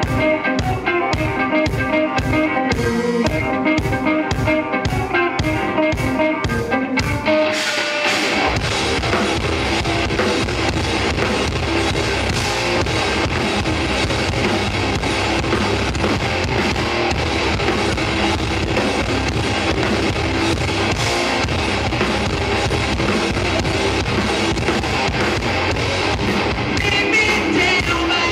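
Live rock band playing loud: distorted electric guitars, bass guitar and drum kit. It opens with a riff of evenly spaced stabbed hits, then the full band comes in about eight seconds in and plays on densely, with a voice starting to sing near the end.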